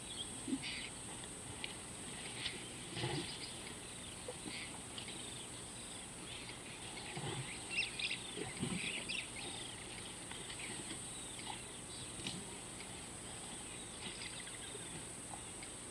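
Small birds chirping over a steady high-pitched hiss, with a few brief low rustles and crunches from an African elephant tearing up and chewing grass.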